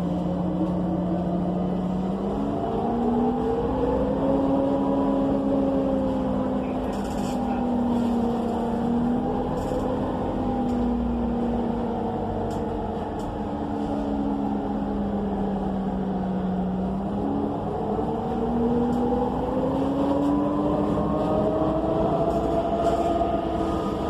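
Cummins Westport ISL G natural-gas engine of a transit bus heard from inside the bus: it runs low and steady at first, climbs in pitch about two seconds in as the bus pulls away, holds, eases down, then climbs again to its highest near the end before dropping off. A few faint rattles come through the cabin.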